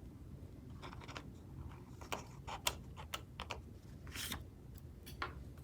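Faint, scattered taps and clicks of sticker sheets and planner paper being handled, with a brief paper rustle about four seconds in.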